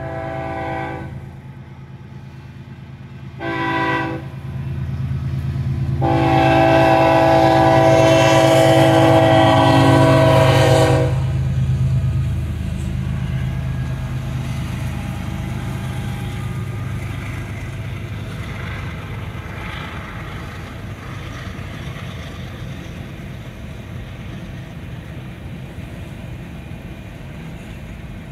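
BNSF diesel freight locomotives sounding their air horn for the grade crossing: one blast, a short blast about three seconds later, then a long blast of about five seconds. After that comes the steady low rumble of the locomotives and freight cars rolling past, heard from inside a car.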